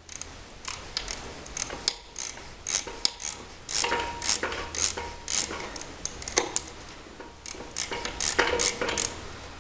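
Irregular metal clicks and clunks as a Troy-Bilt tiller transmission's O-ring-sealed end cap is twisted and wiggled in its housing to work it loose; it is tight and hard to pull out.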